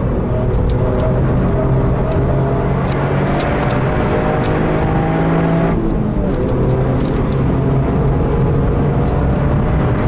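Heavily modified Toyota GR Yaris's turbocharged 1.6-litre three-cylinder engine pulling hard inside the cabin. Its pitch climbs steadily, drops with an upshift about six seconds in, then climbs again, with scattered sharp clicks.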